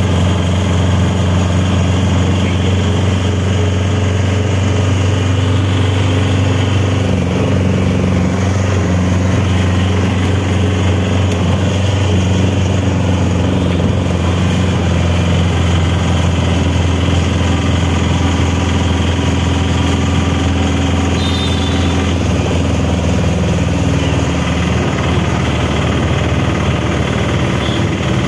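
Engine of the vehicle carrying the recorder running steadily at cruising speed, a loud, even low hum with road and wind noise, heard from inside the moving vehicle.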